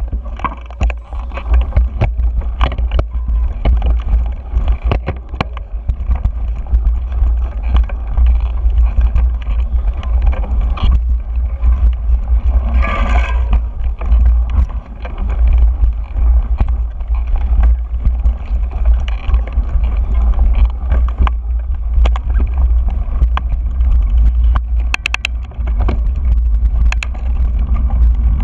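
Mountain bike rolling over a rocky dirt trail, recorded on a GoPro: a steady low rumble of wind buffeting the microphone, with frequent clicks and knocks from the bike rattling over the rough ground. There is a brief louder rasp about halfway through.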